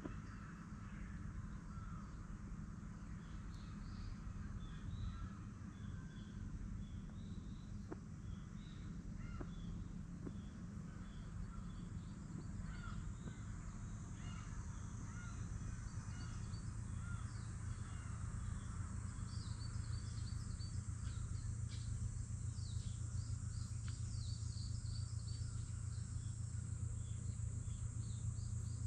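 Wild birds calling on and off, short calls that grow busier in the second half, over a steady low rumble.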